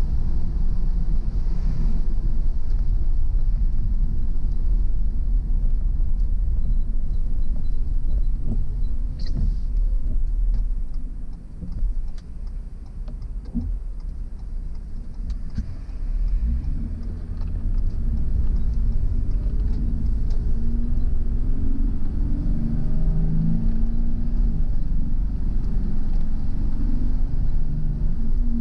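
Car driving, with a steady low road and engine rumble. About 11 seconds in it eases off and goes quieter, then from about 16 seconds the engine note comes up and shifts in pitch as the car picks up speed again.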